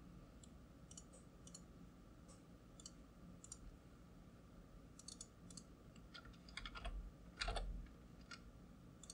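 Scattered faint clicks, then a quick run of computer keyboard keystrokes about two-thirds of the way through as a short word is typed.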